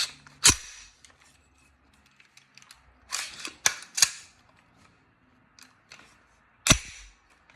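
Metal clicks and knocks from an AR-10 rifle being put back together, its upper and lower receivers pushed and tapped into place: a sharp click about half a second in, a quick cluster of clicks around three to four seconds, and one loud click near the end.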